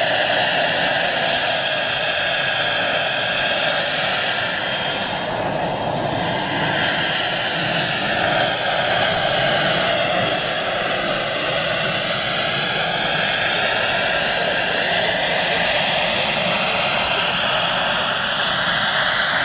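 Turbine engine and rotors of a large radio-controlled scale Lama helicopter running in flight: a steady, loud high whine with rotor noise. Its pitch sinks slowly toward the middle and then rises again near the end.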